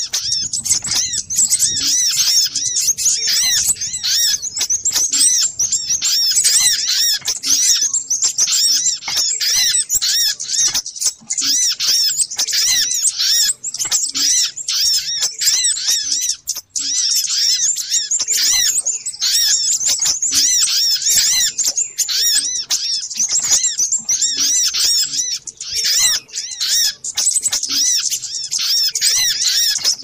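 Dense, busy chatter of many overlapping high-pitched sunbird chirps and twitters, the 'ribut' (noisy) sunbird call played as a lure to draw sunbirds in. It runs on without a break except for a short dip just past halfway.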